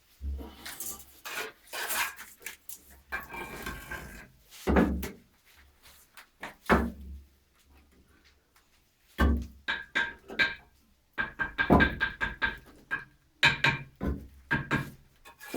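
Irregular knocks, thuds and short scraping sounds from building work, with a quick run of sharp taps in the second half.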